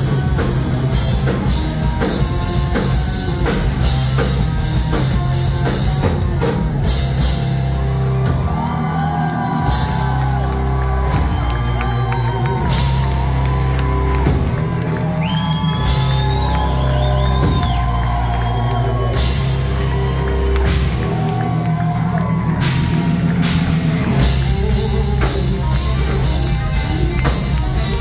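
Rock band playing live: drum kit, bass and electric guitars. From about eight seconds in until about twenty-two, a high melody line with bends and vibrato rides over the band.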